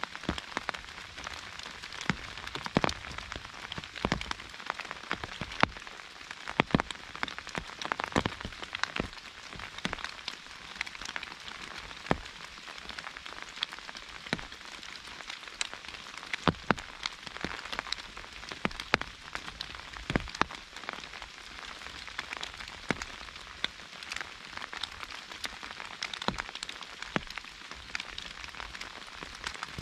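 Rain falling on an umbrella: a steady hiss of rainfall with frequent sharp, irregularly spaced drop impacts, some much louder than the rest.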